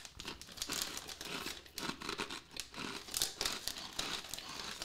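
Snack bag of protein puffs crinkling as it is pulled open and a hand rummages inside it, an irregular run of crackles.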